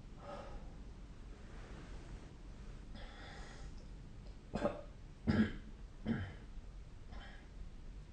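A sleeping person breathing faintly, broken about halfway through by three short coughs in quick succession, less than a second apart.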